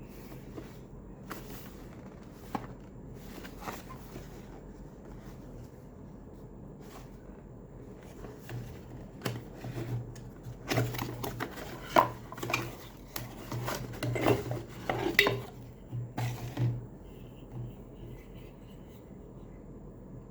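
Hard objects being handled: irregular light clinks, knocks and rubbing, busiest in the middle to later part, over a low steady hum.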